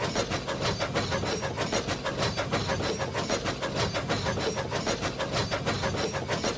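Steam locomotive running, chuffing at a fast, even beat with a steady hiss of steam.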